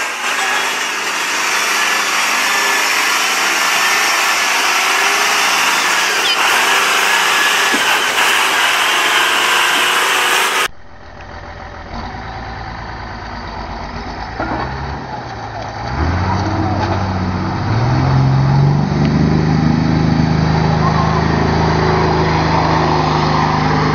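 A red dump truck wades up a shallow river channel, its engine running under an even rush of water. After an abrupt cut, a Volkswagen dump truck's diesel engine revs as the truck churns through muddy water, its pitch climbing in steps and then holding loud.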